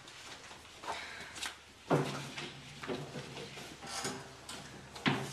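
A few short wooden knocks and bumps in a small room, the two loudest about two seconds in and just before the end.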